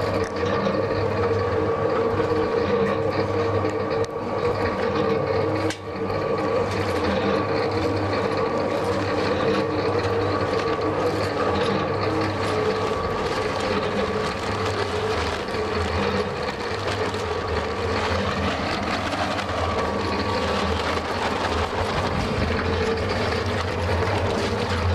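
Homemade concrete mixer running steadily on its first test with water in the drum: a steady machine hum with a dense rattle from the turning drum and drive.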